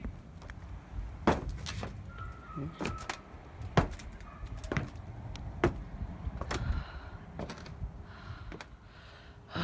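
A run of irregular sharp knocks, clunks and scrapes from a person clambering onto a structure they hope is sturdy, with low bumps and rumble throughout.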